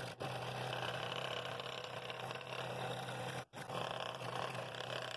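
Scroll saw running with its blade cutting a bevelled ring out of a maple and walnut bowl blank: a steady low motor hum under the rasp of the blade in the wood, with a brief break about three and a half seconds in.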